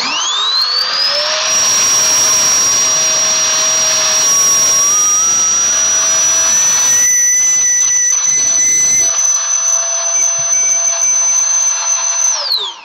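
Small handheld electric vacuum pump sucking the air out of a vacuum storage bag: its motor spins up to a steady high whine within about a second, a lower tone climbs in pitch midway, and the motor winds down and stops near the end.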